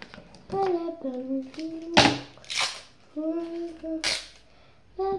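A young girl humming a tune to herself in short held notes, with a few sharp pops between the phrases.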